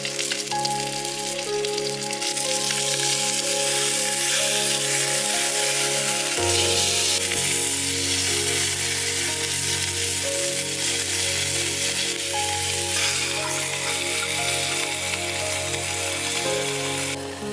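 Chicken breast sizzling in oil in a small frying pan over a campfire, a steady frying hiss that grows louder a couple of seconds in and falls away near the end. Background music plays underneath.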